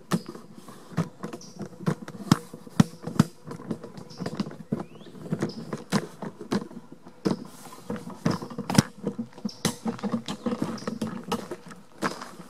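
Footsteps crunching on gravel and leaf litter at a quick walk, about two steps a second, mixed with the rubbing and knocking of a handheld camera being swung about.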